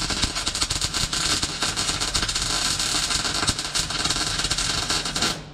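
MIG welder arc crackling steadily as a weld is laid into sheet steel, stopping just before the end.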